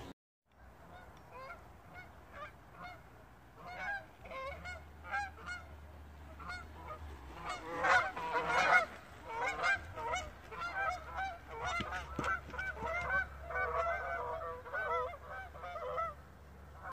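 A flock of Canada geese honking in flight overhead: many short, overlapping calls that thicken and grow louder about halfway through and keep going.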